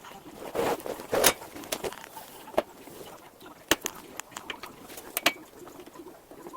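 Irregular clicks, taps and knocks of hands and tools working on a treadmill during a belt replacement, with a brief rustling scrape about a second in.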